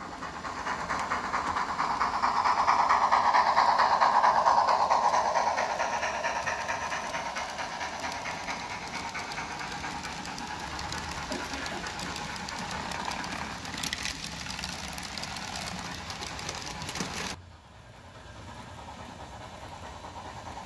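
HO scale Great Northern model freight train rolling across a model bridge: a steady rattle and hiss of small wheels on track, loudest a few seconds in as the cars pass closest. It breaks off abruptly a few seconds before the end and comes back quieter, slowly growing as the train approaches again.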